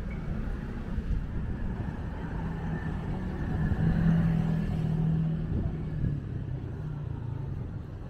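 Street traffic: a motor vehicle's engine running close by with a steady low hum that swells for a couple of seconds around the middle, over a general traffic rumble.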